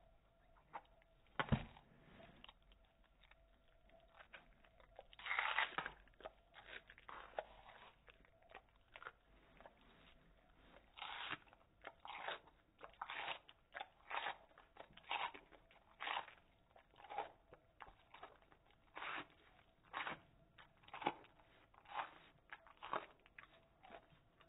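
A skunk chewing a piece of red bell pepper: wet, crackly crunching bites, irregular at first, then a steady rhythm of about one crunch a second, slowed down.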